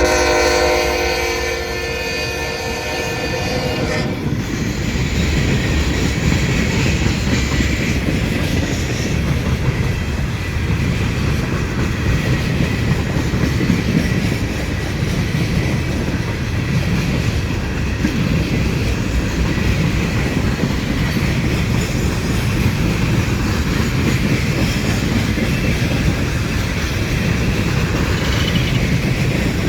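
Train horn sounding a chord of several tones that cuts off about four seconds in, then the train rolling past with steady rumble and wheel clatter over the rails.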